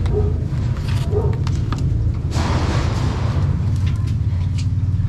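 Small engine-driven water pump running steadily as it drains water from the dug septic-tank pit, with scattered knocks from construction work nearby.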